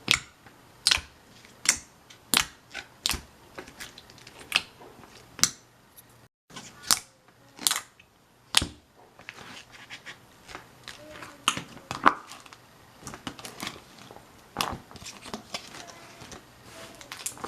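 A thick, glossy slime being pressed and pulled by hand, giving sharp popping clicks about once every second at first, then quicker, mostly softer pops after a short break about six seconds in.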